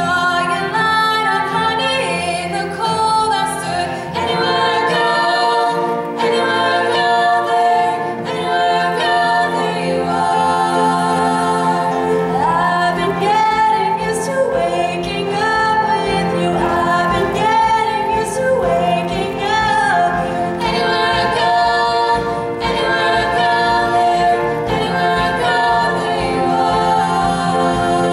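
Female vocal trio singing in close harmony over acoustic guitar, with a drum beat coming in about twelve seconds in.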